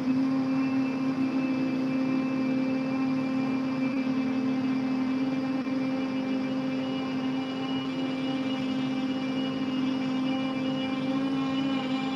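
A group of people humming together with closed mouths in bhramari pranayama (bee breath), one long steady drone held at a single low pitch.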